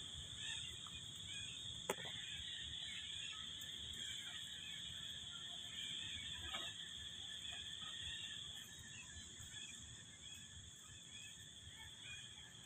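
Steady high-pitched insect drone with faint short chirps scattered through it, and a single sharp click about two seconds in.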